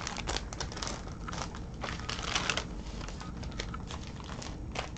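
Plastic zip-top bags and fabric crinkling and rustling as they are handled and moved: a run of small, irregular crackles.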